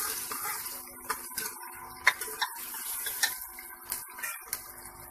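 Steel spoon stirring sliced onions and whole garlic cloves frying in oil in a steel pressure cooker, with a light sizzle and several sharp clinks and scrapes of the spoon against the pot.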